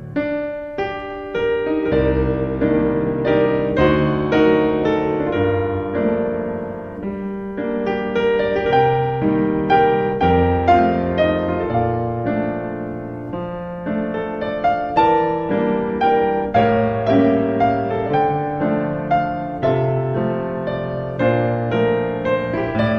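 Solo piano music: a gentle melody over chords, notes struck one after another.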